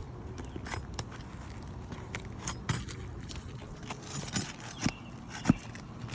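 Hand tools working on an asphalt shingle roof: irregular light clicks, taps and scrapes, with one sharper knock about five and a half seconds in.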